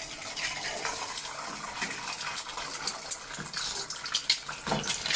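Liquid simmering in an aluminium pan with eggs cracked into it to poach: a steady bubbling hiss dotted with many small crackles.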